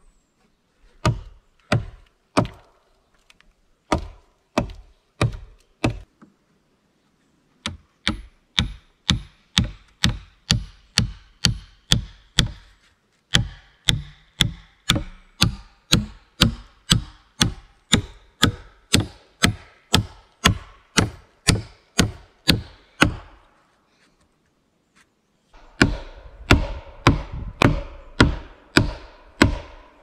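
Wood being struck over and over with a hand tool, like chopping. A few spaced blows come first, then a steady run of about two blows a second. After a brief pause there is another quick run near the end.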